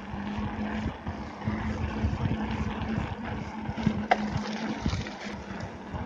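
Wind buffeting the microphone of a moving bicycle, an uneven low rumble, over a steady low hum, with a brief tick about four seconds in.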